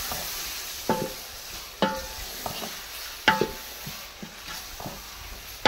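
Wooden spoon stirring onions, tomatoes and spice paste frying in ghee in a large metal pot: a steady sizzle, with the spoon knocking three times against the pot, which rings briefly each time.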